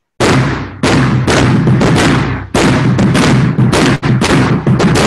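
Large rope-tensioned marching bass drum struck with mallets: a rhythmic passage of about a dozen loud strokes, each ringing on into the next, beginning a moment in.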